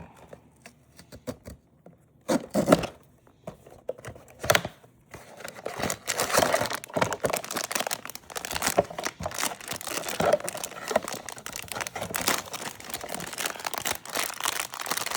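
Labubu blind box packaging being torn open and handled: a couple of sharp rips after a quiet start, then steady crinkling of the wrapping from about five seconds in.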